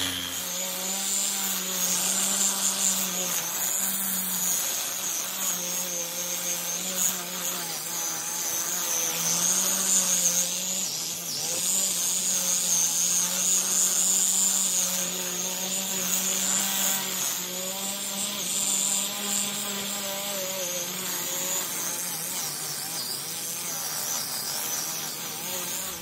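Angle grinder with a red abrasive disc running against a steel muffler shell, cleaning and polishing its surface. The motor's whine wavers up and down as the disc is pressed on and eased off, over a steady hiss of abrasion.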